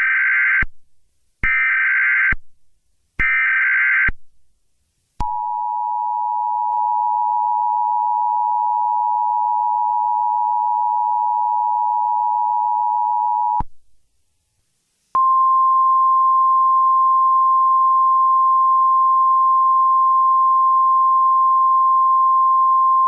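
Emergency Alert System broadcast tones: three short, harsh bursts of SAME header data. They are followed by the two-tone EAS attention signal, held for about eight seconds, and after a brief pause a steady single-pitch weather-radio alert tone.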